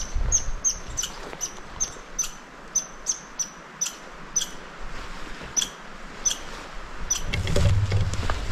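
Red squirrel calling: a long run of short, high chirps, about three a second, spacing out a little toward the end. A low rustle of movement comes in near the end.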